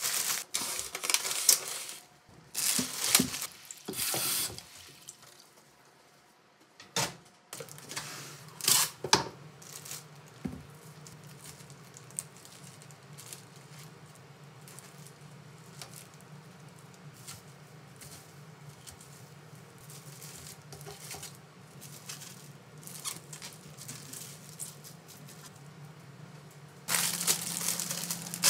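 Plastic produce bags crinkling and rustling as vegetables are handled on a stainless-steel counter, then quieter scraping and small clicks of a spoon scooping seeds out of a kabocha squash. A low steady hum comes in about a quarter of the way through, and loud bag crinkling returns near the end.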